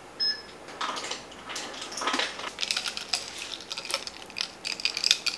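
Ice cubes clinking into a glass mug of coffee, then a glass straw stirring the ice and rattling it against the mug in quick, irregular clinks. A brief high ding just after the start.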